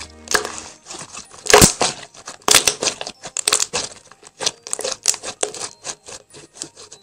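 Thick white milky slime being kneaded and squeezed by hand, giving a stream of irregular sharp sticky pops and crackles. The loudest pops come about one and a half seconds in and again around two and a half to three and a half seconds.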